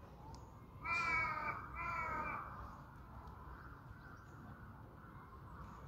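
Crow cawing twice, about a second in, each caw about half a second long.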